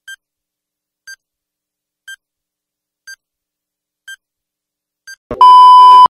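Countdown sound effect: six short electronic beeps, one a second, followed by a loud, steady test-pattern tone that starts with a brief crackle and cuts off suddenly.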